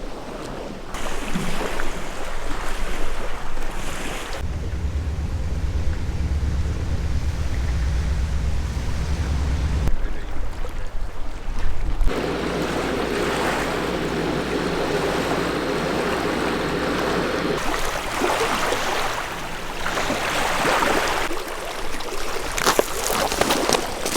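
Wind buffeting the microphone and rushing water, in several short outdoor clips cut together, each starting and stopping abruptly; one stretch carries a steady low hum.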